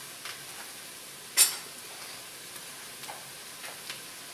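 Mushrooms sizzling steadily as they cook down in a stainless steel pot on a gas burner, with one sharp tap about a second and a half in and a few faint clicks later.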